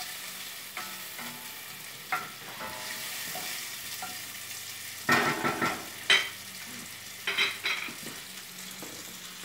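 Bacon sizzling in oil in a frying pan, stirred with a wooden spoon that scrapes and knocks against the pan. There are single knocks about one and two seconds in, and louder clusters of knocks about five seconds in and again near the end.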